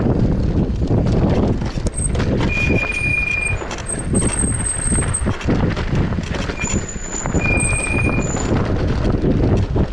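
Wind rushing over the microphone and the rattle of an ENGWE Engine X electric bike riding over a rough trail, with a few short high-pitched squeals in the middle.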